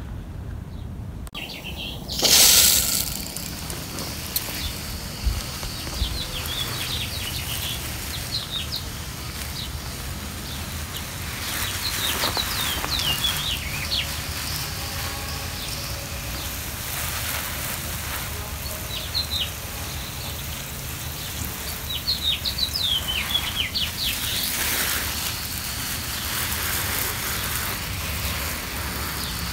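Garden hose spraying water onto loose dug soil, a steady hiss, with a brief louder rush about two seconds in. Birds chirp in short bursts over it several times.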